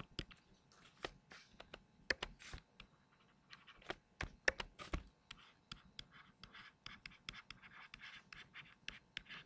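Faint clicks and light scratches of a stylus tapping and writing on a tablet screen, sparse at first and coming more often in the second half as a word is written.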